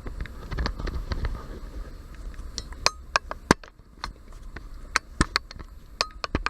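Dashboard trim and hand tools being handled: a string of sharp clicks and light clinks, some ringing briefly, coming thicker about halfway through.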